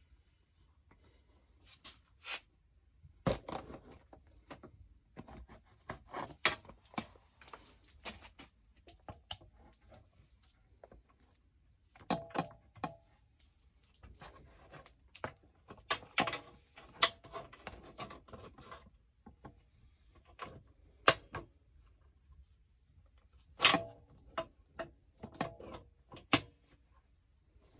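Metal clamps handled and tightened onto a steel seat pan: irregular clicks, clanks and knocks, several ringing briefly like metal on metal, with two sharper clanks in the latter half.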